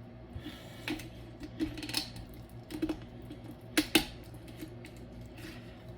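Kitchen scissors snipping and crunching through a raw turkey's backbone to spatchcock it: a handful of irregular sharp snips, the loudest a quick pair about four seconds in.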